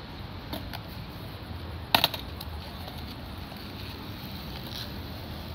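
Skateboard on smooth concrete: one sharp clack of the board about two seconds in, with a few lighter clicks before and after, over a steady low rumble.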